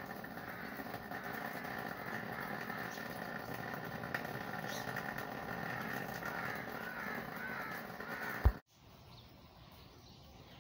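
Outdoor garden ambience after rain: a steady background din with birds calling. A sharp click about eight and a half seconds in, then the sound drops suddenly to a much quieter background with faint bird chirps.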